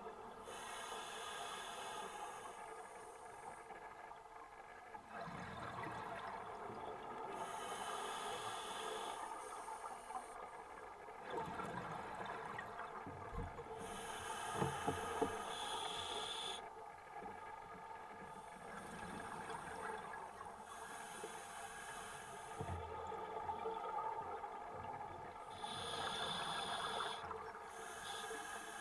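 Scuba breathing through a regulator heard underwater: a hiss on each inhalation alternating with a rush of exhaled bubbles, the cycle repeating every five or six seconds. A couple of short knocks about halfway through.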